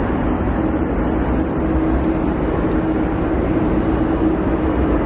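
Boeing 787-9's jet engines at takeoff power as the airliner climbs away, a loud, steady rumble with a low hum running through it.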